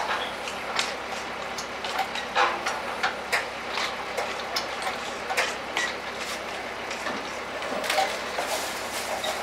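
Irregular metallic clicks and knocks from a walk-behind electric pallet stacker being worked into place by its tiller handle inside a truck's cargo body.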